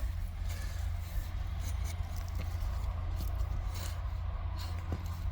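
Potato plants being dug up from hard allotment soil: a few faint scrapes and knocks over a steady low rumble.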